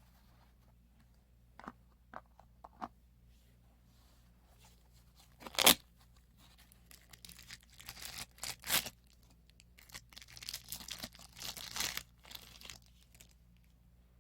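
Packaging being handled: a few light clicks, then one sharp rip, followed by several seconds of crinkling and rustling as the wrapping is torn open and worked off.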